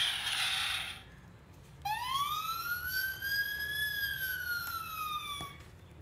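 Electronic sound chip in a children's vehicle sound book playing through its small speaker: a rushing engine-like noise stops about a second in, then a single siren wail rises, holds and slowly falls.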